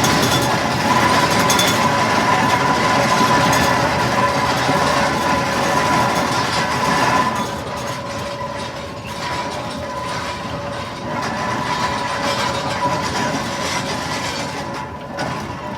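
Fowler BB1 steam ploughing engine on the move: a continuous mechanical clatter and rumble with a steady whine over it, getting quieter about seven seconds in.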